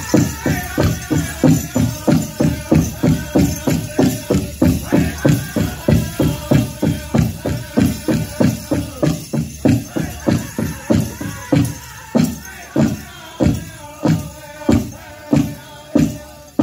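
Powwow drum group playing a chicken dance song: a large drum beaten hard and evenly about three times a second, with singing and a steady jingle of bells. About twelve seconds in, the beat slows to under two a second.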